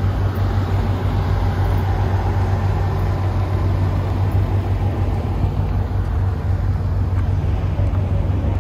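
Car engine and road noise: a steady low hum with no change in pitch.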